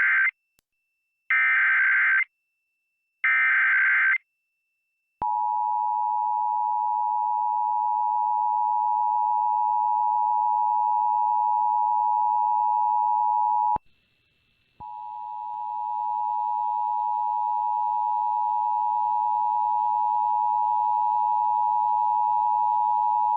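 Emergency Alert System tones broadcast on FM radio. The SAME digital header starts with the end of one harsh data burst and two more, each about a second long. The two-tone attention signal follows, a steady dual tone that breaks off for about a second midway and resumes. Together they announce a child abduction (AMBER) alert.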